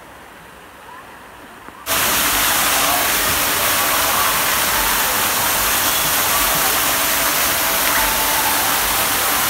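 Faint background ambience with a few soft chirps, then about two seconds in a loud, steady rushing noise starts abruptly and carries on.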